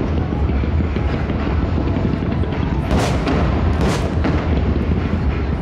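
Fireworks bursting over a continuous low rumble, with two loud bursts about a second apart a little past halfway.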